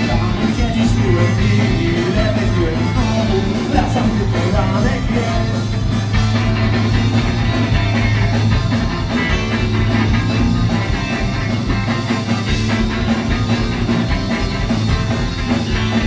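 Punk rock band playing live: electric guitars, bass guitar and drum kit, with a singer.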